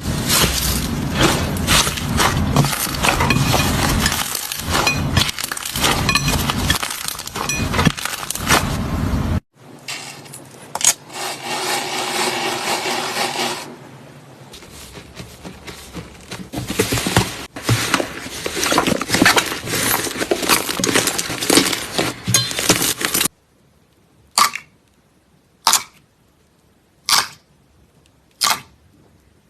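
Crunchy slime crackling and popping as it is squeezed and poked. Dense loud crackling gives way about nine seconds in to quieter, finer crackling, then near the end to about five single sharp pops a second and a half apart.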